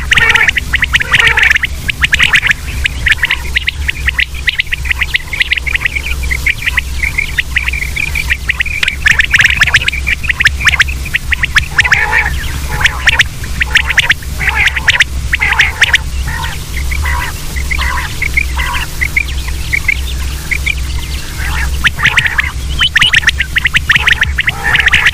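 Common quail calling over and over, with quick sharp calls repeating and overlapping, thickest at the start and again near the end, over a steady low hum.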